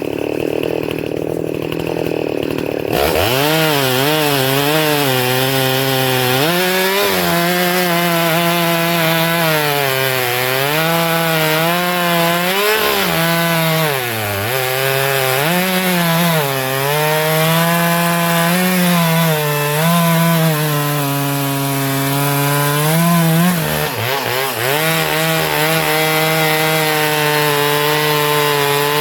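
A 66 cc Echo CS-680 two-stroke chainsaw with a 27-inch bar running at full throttle while cutting through an oak log. About three seconds in, the engine note settles into a high whine whose pitch keeps sagging and recovering as the chain loads in the wood, dipping deeper twice.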